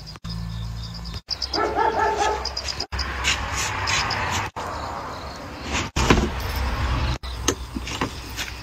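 A dog barking in short runs, with the sound dropping out abruptly several times.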